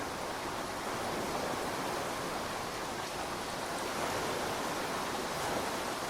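Steady rush of pouring rain mixed with ocean surf, an even hiss without distinct strikes or thunderclaps.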